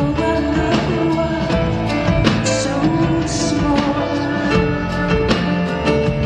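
Live band music, loud throughout: a steady drum beat under held pitched notes, with a brief cymbal-like hiss twice around the middle.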